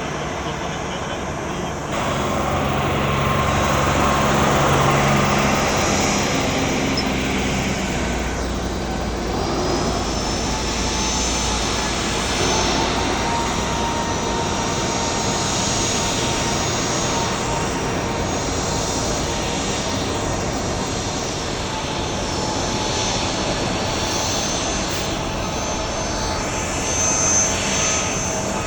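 Boeing 737-800's CFM56-7B jet engines running steadily, louder from about two seconds in, with a thin whine through the middle.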